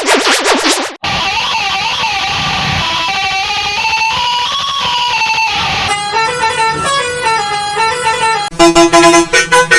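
A bus-horn melody played in quick succession of different sound variations, each cut sharply into the next: a wavering melodic version, a plucked, guitar-like version about six seconds in, and loud short repeated horn notes near the end.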